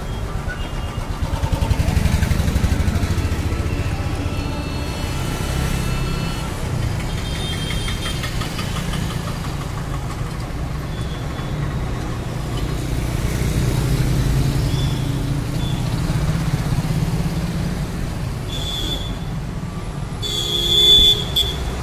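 Road traffic in an Indian city: vehicle engines running close by, swelling around two seconds in and again near the middle. Short high-pitched horn toots cut through now and then, the loudest about a second before the end.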